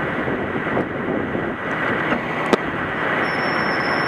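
Tow truck running while it winches a crashed pickup up a steep embankment, with high squeaking from the towing rig. A single sharp click about two and a half seconds in, and a thin high squeal joins about three seconds in.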